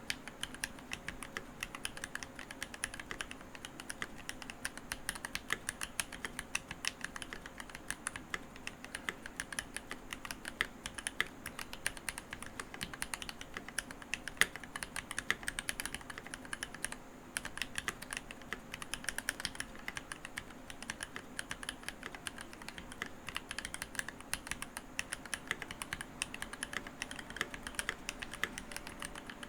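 Continuous fast typing on a Keychron V1 mechanical keyboard with Gateron Cap Milky Yellow linear switches and GMK keycaps: a dense, irregular stream of key clicks, with a brief pause a little past the middle.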